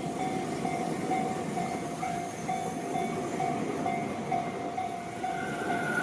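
Level-crossing warning bell ringing steadily at about two strikes a second, over the rumble of an electric commuter train passing the crossing.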